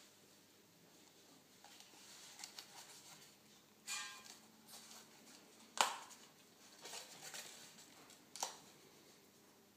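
A fixed-blade knife is handled in its leather snap-strap sheath and drawn out, with faint rustling of leather and a few short, sharp clicks. The loudest click comes about six seconds in, and there are smaller ones around four seconds and near eight and a half seconds.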